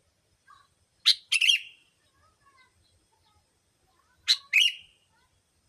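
Sooty-headed bulbul (kutilang) lure call: two short, loud two-note chirping phrases, about a second and three seconds in.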